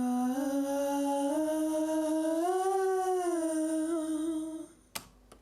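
A recorded backing-vocal harmony layer played back: a single hummed voice holding a line that steps up, swells to a higher note about halfway through, settles slightly lower and stops. A sharp click follows near the end.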